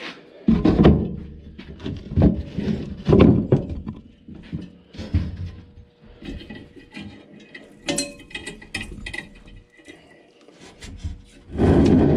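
Belsaw M-14 sawmill feed husk being worked by hand, giving irregular clunks, knocks and gear rattle from its rough, worn bearings. A steady, louder running noise comes in just before the end.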